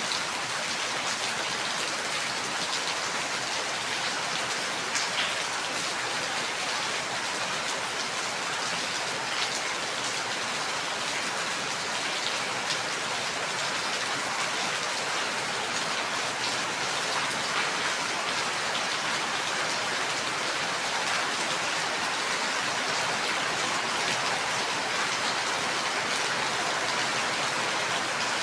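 Steady rain falling, with a dense even hiss and the occasional louder drop tapping on a surface.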